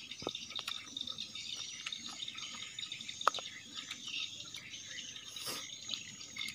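Wet mouth and hand sounds of eating with the fingers: scattered soft clicks and smacks, one sharper click about three seconds in. A steady high drone of insects runs underneath.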